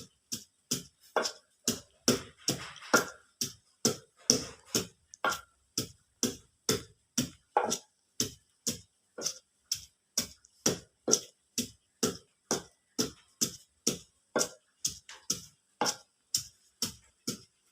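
Pestle pounding herbs in a mortar: steady, sharp strikes at about two a second, each with a brief ring.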